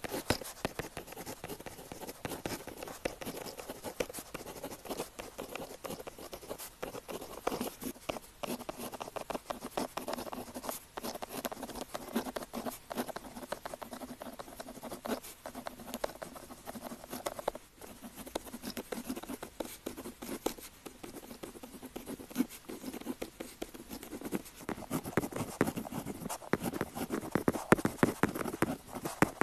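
Pen tip writing on paper: a steady run of small scratches and taps from the pen strokes, with a brief pause a little past halfway.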